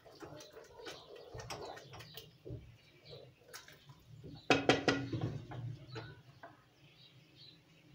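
Wooden spoon stirring cooked beans in an aluminium pressure-cooker pot: scattered soft scrapes and knocks against the pot, with a louder knock about four and a half seconds in.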